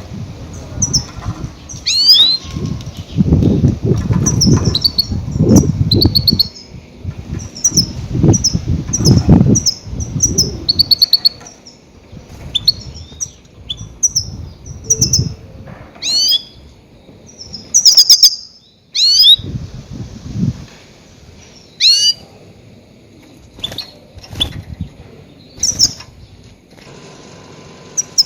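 Goldfinch calls used as a lure call for trapping grey-headed goldfinches: short, bright chirps and quick rising notes, repeated in irregular bursts. Under them there are loud low rumbling bursts of noise, mostly in the first half.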